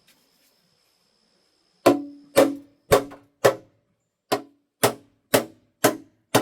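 Hammer blows on metal while working a seized oil-pan bolt on an engine: about nine sharp strikes at roughly two a second, starting about two seconds in, in two runs with a short pause between. The first strikes have a brief metallic ring.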